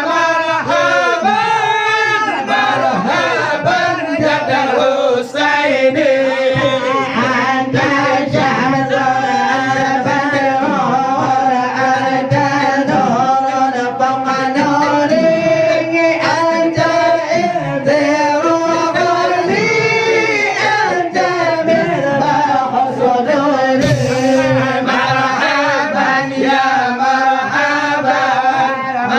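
A group of men singing an Acehnese syair together into microphones, an unaccompanied chant with several voices layered over one another and their pitch sliding between notes.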